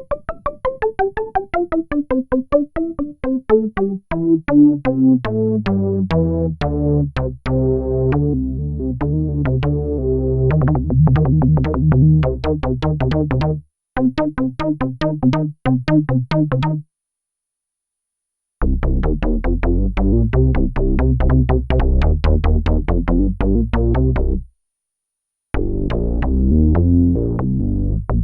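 Sequential Prophet-6 analogue polyphonic synthesizer playing factory presets: fast repeated-note sequenced patterns, opening with a falling run of notes over a deep bass. It stops three times with short silences as the presets change.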